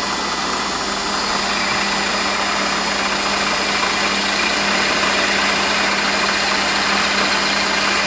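Warco metal lathe running steadily while a twist drill bores slowly through the spinning workpiece. The sound is an even machine hum under a steady hiss of cutting.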